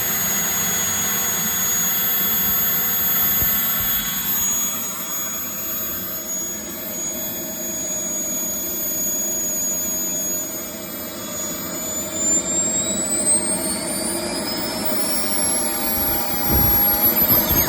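Jetmunts 250XL turbine engine running with a steady high-pitched whine that climbs in pitch and gets louder over the last few seconds. The owner suspects it may have a bad bearing.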